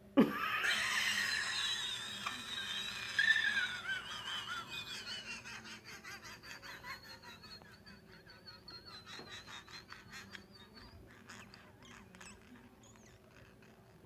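A sudden loud hiccup, then high-pitched, uncontrollable laughter that slowly dies down into short breathy pulses and fades out.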